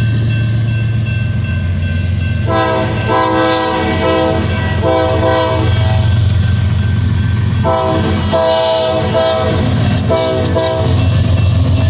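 CSX ES44AC diesel locomotives departing with a steady low engine rumble while sounding their multi-chime SAAHC air horns. The horns give two groups of blasts, short-long-short, the first about two and a half seconds in and the second about eight seconds in.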